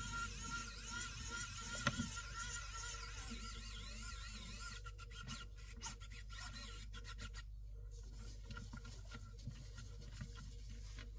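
Rubbing and scraping for the first few seconds, then a run of quick light clicks and taps, thinning out toward the end.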